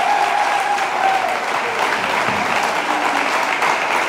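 Audience applauding in a hall with steady clapping, and one long held cheer over it that fades out about a second in.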